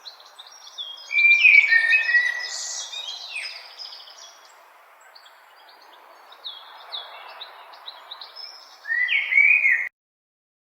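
Birds chirping and singing, many short calls overlapping, over a steady background hiss. The calls are loudest about a second in and again near the end, where the sound cuts off suddenly.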